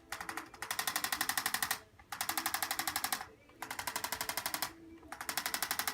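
Chiropractic adjusting instrument tapping rapidly, about a dozen strikes a second, in four bursts of a second or so with short pauses between, delivering pressure and vibration into the hip and low back.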